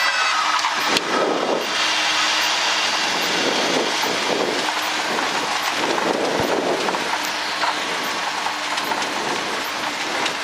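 Cessna 172 Skyhawk landing with its four-cylinder Lycoming engine at idle: a knock about a second in as the wheels touch down, then the landing roll with a steady rush of wind and propeller noise and an uneven tyre rumble.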